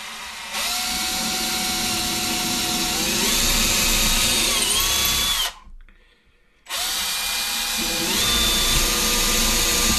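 Power drill with a small bit drilling holes down through a model railway's track bed, run twice with a short pause between. The motor's whine steps up in pitch partway through each run.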